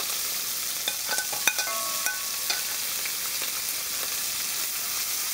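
Chopped red bell pepper and green onion sizzling steadily in hot olive oil in a heavy-bottomed pot. A few light clinks and taps come between about one and two and a half seconds in.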